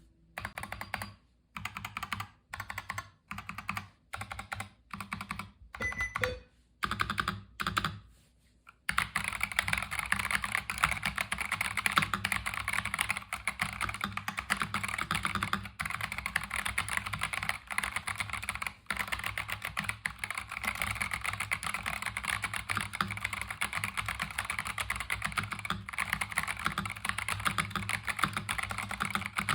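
Epomaker TH66 mechanical keyboard fitted with Gazzew Boba U4T 62 g tactile switches being typed on. For the first nine seconds or so the keystrokes come in short separate bursts, about one a second; after that comes continuous fast typing.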